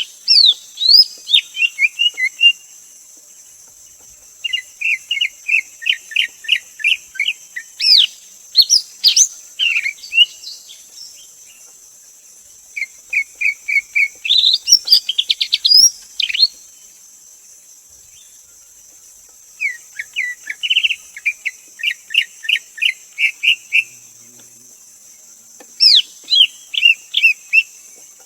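Greater green leafbird singing: five bouts of quick, repeated whistled notes, each a few seconds long, with pauses between them, over a steady high hiss.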